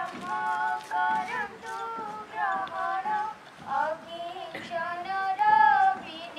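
Schoolchildren singing a morning prayer song, with long held notes that rise and fall in pitch.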